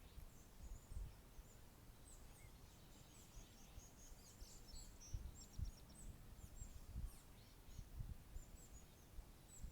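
Faint outdoor ambience: small birds chirping thinly and high-pitched off and on, with a short rapid trill about five seconds in, over an irregular low rumble.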